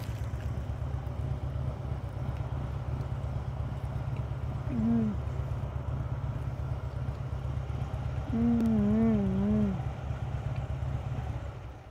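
A woman hums an appreciative closed-mouth "mmm" while chewing a lettuce wrap: a short hum about five seconds in, then a longer wavering one a few seconds later. Under it runs a steady low engine rumble that cuts off just before the end.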